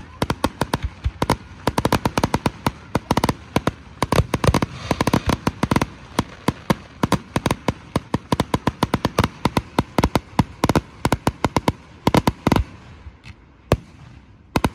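Fireworks display going off: a rapid, dense run of sharp bangs from bursting shells, several a second. About twelve seconds in it thins to a few scattered bangs.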